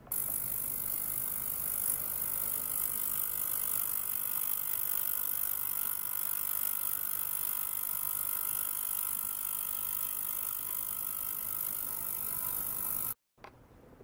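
Benchtop ultrasonic cleaner running: a steady, mostly high-pitched hiss of cavitating liquid with a few faint steady tones under it. It starts abruptly and cuts off abruptly near the end.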